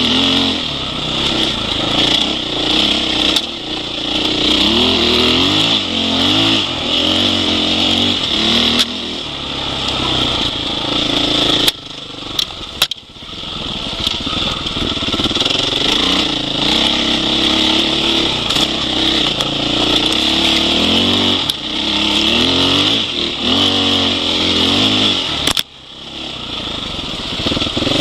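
Husqvarna 501 Enduro's single-cylinder four-stroke engine being ridden on a dirt trail, revving up and down again and again with the throttle. The engine sound dips briefly about twelve seconds in and again near the end.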